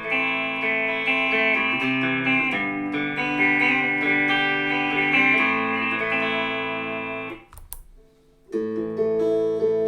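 Electric guitar played through a Cry Baby wah pedal used as a fixed filter for a bright tone, strummed chords ringing and changing every second or two. The playing stops about seven and a half seconds in with a sharp click, then starts again a second later.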